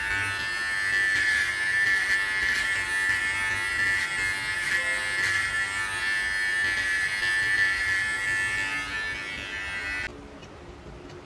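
Xiaomi Enchen Hummingbird electric hair clipper running, a steady buzz as it trims short hair at the back of the head. It stops abruptly about ten seconds in.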